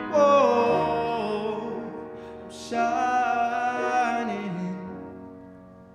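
A man singing with grand piano accompaniment: a sung phrase falling in pitch at the start, then a new held note about three seconds in. The song's last notes fade out near the end.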